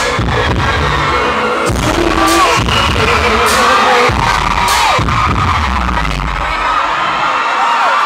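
Loud live pop concert music with a heavy bass beat and sharp beat hits, with high screams from the crowd over it. The deep bass drops away about six and a half seconds in.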